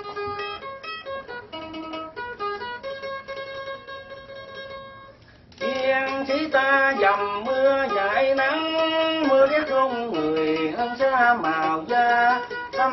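A small ukulele-sized stringed instrument played live, picked note by note. About five and a half seconds in, a voice comes in singing over it, much louder than the playing alone.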